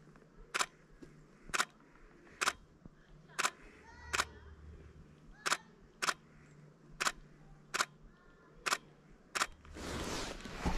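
Sharp single clicks about once a second, with faint chirps between them; about ten seconds in, footsteps start crunching in snow.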